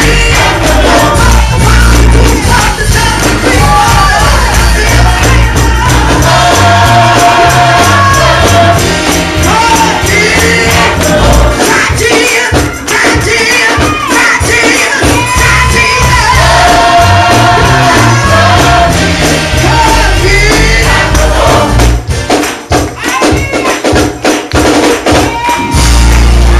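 Congregation singing a gospel song together, with hand-clapping, a tambourine and a bass line underneath. The bass drops out for a few seconds near the end, leaving the voices and clapping.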